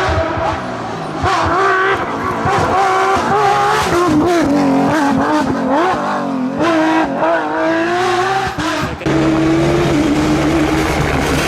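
Rally car engine driven hard on a stage, its pitch rising and falling repeatedly through throttle changes and gear shifts, with sharp pops among it. About nine seconds in the sound switches abruptly to a steadier engine note.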